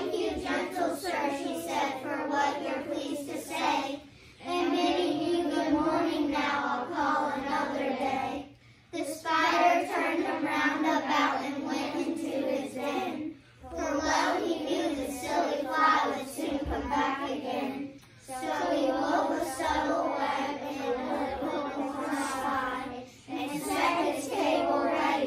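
A group of young children reciting a poem together in unison, line by line, with a short pause between lines about every four to five seconds.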